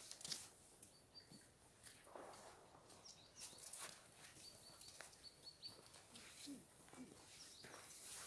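Faint short high calls of a small songbird, a few quick notes about a second in and a run of them in the middle, with a few soft crunches between them in an otherwise near-silent winter forest.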